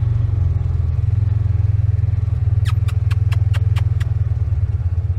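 An engine running steadily with a deep, pulsing drone. About two and a half seconds in comes a quick run of seven or so sharp clicks.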